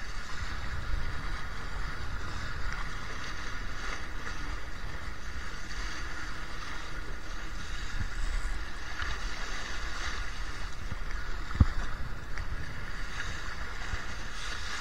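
Wind buffeting the microphone and water rushing past the hull of a Laser 2 sailing dinghy sailing in strong wind, with a single sharp thump about two-thirds of the way through.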